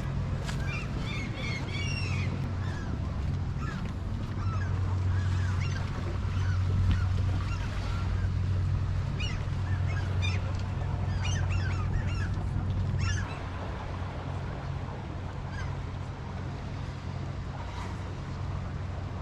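Many birds calling in short, repeated cries over a steady low hum; the hum drops away about two-thirds of the way through while the calls go on more sparsely.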